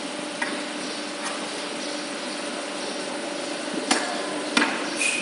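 A few sharp knocks, as of hammer blows in foundry work on the sand moulds: two faint ones in the first second or so, then two louder ones a little under a second apart about four seconds in, and one more near the end. A steady machine hum runs underneath.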